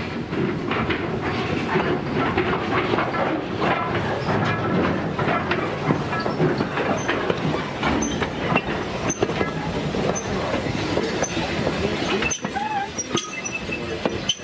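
A Thomas the Tank Engine replica locomotive and its wooden passenger coaches rolling past at close range, wheels clattering over the rail joints in a steady run of clicks, with short high wheel squeals from about halfway on.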